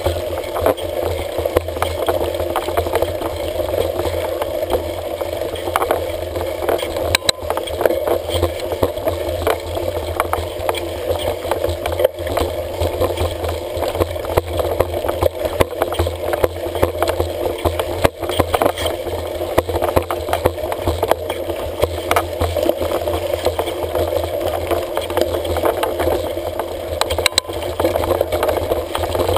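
Mountain bike ridden over a rough dirt trail, heard from a handlebar-mounted GoPro: a steady rumble of wind and tyres on dirt, with frequent small rattles and clicks from the bike and camera mount jolting over the ground.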